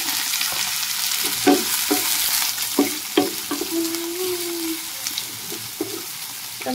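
Chopped onions sizzling in hot oil in a non-stick kadai, with a wooden spatula scraping and knocking against the pan several times as they are stirred. A short low hum sounds about halfway through.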